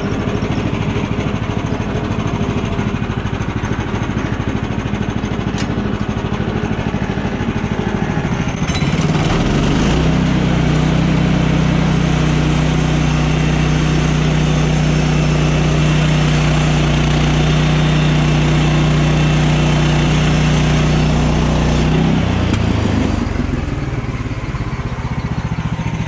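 Gasoline engine of a Woodland Mills HM130 portable bandsaw sawmill running at a lower speed, then revving up about nine seconds in to a steady high speed while the blade makes a slab cut through a red pine log. It drops back down about 22 seconds in.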